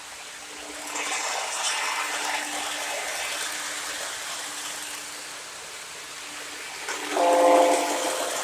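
O gauge Lionel model train rolling on its three-rail track, with a steady hum under the rushing wheel noise, which gets louder about a second in. Near the end the train gives a loud, short multi-note toot lasting about a second.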